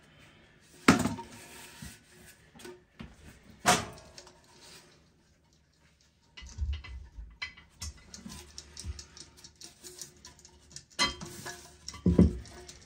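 Porcelain toilet tank of an American Standard Cadet 3 being set onto its bowl and worked into place. There are two sharp ceramic knocks, about a second in and nearly four seconds in, the second ringing briefly. Scattered smaller knocks and clatter follow, ending with two more knocks near the end.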